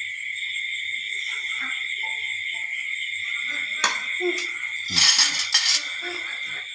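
Steady, unbroken chorus of night insects, a high shrill trill sitting at several pitches. A short burst of clatter comes about four seconds in and again around five seconds.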